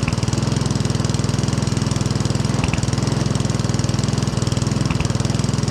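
Mountfield 474 SP petrol lawnmower engine running at a steady speed after being revived. The owner notes a slight hunt in it and says the carburettor wants a clean.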